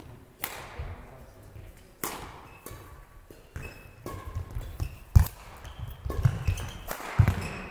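Badminton rally: crisp racket strikes on the shuttlecock about every one to one and a half seconds, each with a short echo from the hall. Heavy footfall thuds on the court come in the second half as a player lunges.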